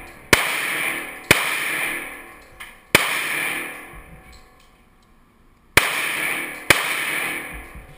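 Five gunshots from an indoor shooting range, each followed by a long echoing decay off the range walls: three about a second apart, a pause of nearly three seconds, then two more near the end. A fainter, sharper crack falls between the second and third shots.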